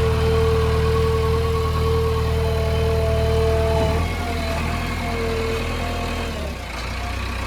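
Heavy diesel engine of construction machinery idling steadily, its note shifting slightly about four seconds in, with a held tone above it that breaks off at the same moment.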